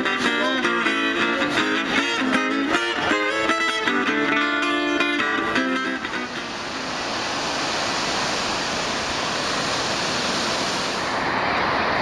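Plucked guitar music that stops about halfway through, followed by the steady rush of ocean surf.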